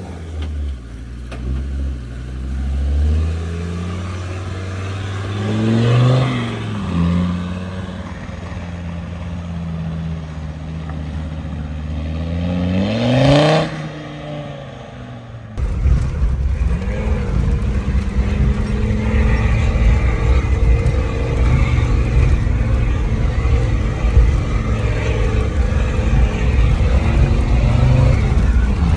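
Land Rover Discovery 2's engine revving up and easing off several times as it crawls over rocks, with a long steep rev rise just before the middle. Then a sudden change to a steady engine drone and heavy road rumble from inside a vehicle's cabin driving along a rough stony track.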